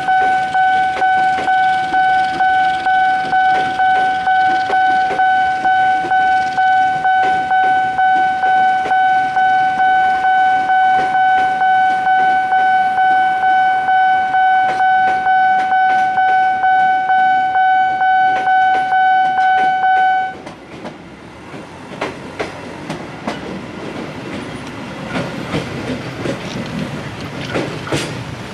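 Level-crossing warning alarm sounding one steady pitch in quick, even pulses while a train of commuter electric cars rolls past with clicking wheels over rail joints. About two-thirds of the way through the alarm cuts off suddenly, and road traffic with cars and motorcycles takes over.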